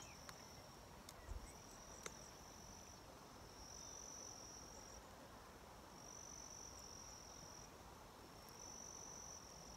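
Faint insect song: a thin, high, steady trill that comes in stretches of one to two seconds with short gaps between, over otherwise quiet outdoor air. A couple of faint clicks come about one and two seconds in.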